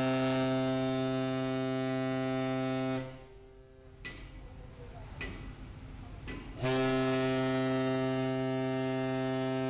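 A ship's horn giving two long, steady, low blasts, with a pause of nearly four seconds between them that holds a few sharp knocks.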